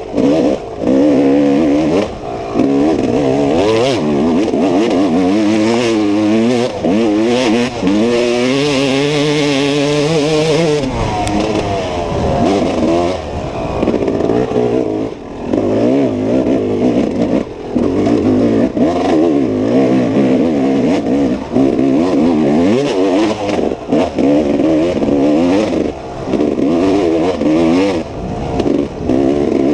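Dirt bike engine revving up and falling back over and over as it is ridden round a race course, with frequent knocks and rattles mixed in.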